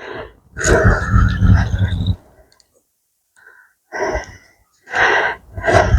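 A man's heavy, breathy exhalations and gasps, three of them, from the effort of playing a hooked carp.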